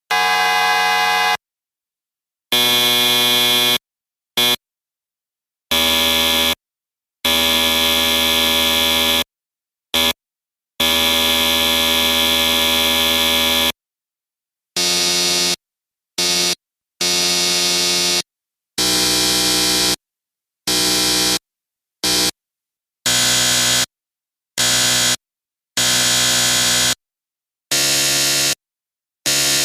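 A series of electric buzzer blasts: harsh, steady buzzing tones that cut on and off, some short, others held two or three seconds, with silent gaps between them. The pitch and tone change between groups of blasts.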